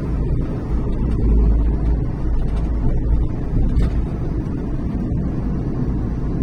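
Rough sea in a typhoon, waves surging against the shore with wind buffeting the microphone: a loud, deep, steady rumble that swells a little about a second in.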